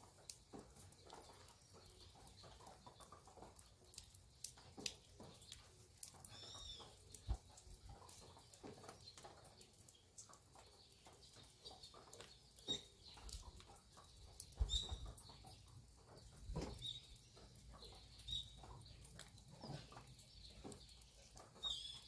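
Faint farmyard morning ambience: small birds chirping now and then, with scattered light ticks and a few low bumps past the middle.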